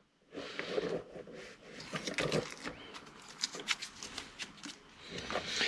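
Blue painter's tape being peeled off the cut end of a stainless-braided PTFE hose: faint, irregular crackling and rustling of tape and handling.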